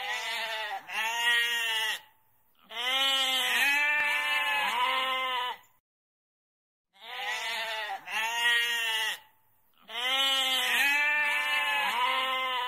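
Goat bleating: two short bleats and then a long bleat that wavers in pitch, and the same run of calls again after a pause of about a second.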